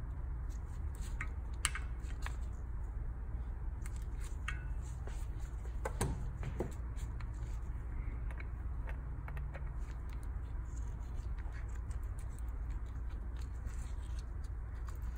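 Scattered small metallic clicks, taps and light scrapes of tools and engine parts being handled on a workbench, over a steady low hum.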